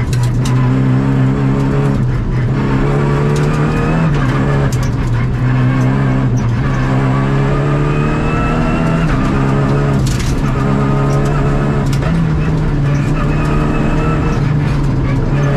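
Rally car engine heard from inside the cabin at stage speed, its pitch climbing under acceleration and dropping again several times through gear changes and braking. A few sharp knocks cut through along the way.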